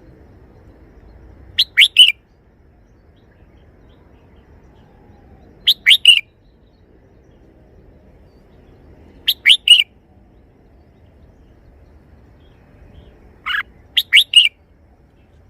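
Red-whiskered bulbul singing a short three-note phrase, repeated four times about every four seconds; the last phrase has an extra note before it.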